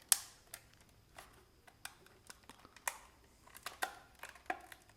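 Scattered sharp clicks and taps of a speed cube's packaging being opened and handled, the loudest one right at the start.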